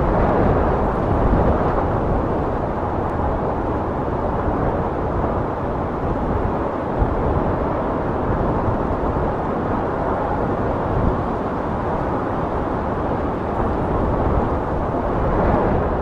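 Sea surf washing up over a sand beach: a steady rush of breaking waves and foam.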